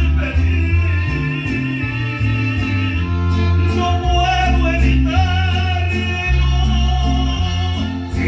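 Mexican ranchera-style music: a singer with guitar over a heavy bass line that changes note every second or so, with long held melody notes.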